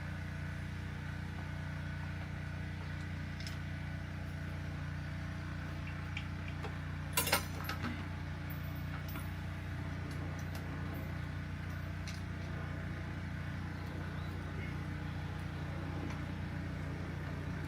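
Light metal clinks of bike hardware being handled during assembly, a sharp one about seven seconds in and a couple of smaller ones just after, over a steady low background hum.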